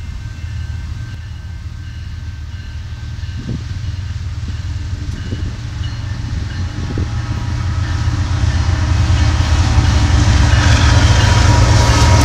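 Approaching BNSF freight train: the deep rumble of its diesel locomotives and the noise of wheels on rail grow steadily louder as the lead locomotive comes close, with a few light knocks along the way.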